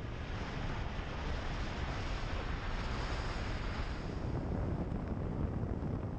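Wind buffeting a car-mounted microphone over the rumble of a car driving on a gravel road, with a brighter hiss over the first few seconds.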